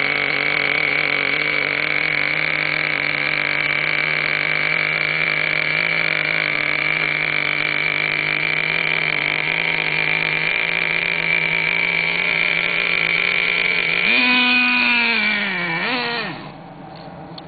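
Small nitro engine of a radio-controlled monster truck running close by with a steady, high-pitched buzz. About 14 seconds in it revs up and then winds down in pitch, and just after it drops off to much quieter.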